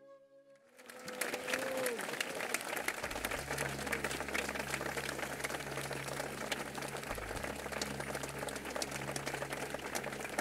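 An audience applauding: a dense patter of many hands clapping starts about a second in. A low steady hum joins underneath from about three seconds in.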